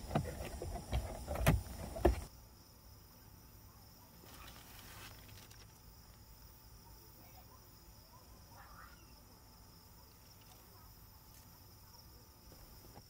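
Clunks and knocks of hands fitting a shade panel against a car's rear side window, the loudest two about a second and a half and two seconds in. Then quiet, with soft rustling of a plastic bag and a mosquito net being unpacked.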